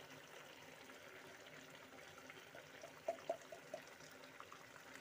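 Melted ghee poured in a thin stream onto a simmering egg curry in a frying pan: a faint trickle and the low bubbling of the curry, with a few soft clicks a little after halfway.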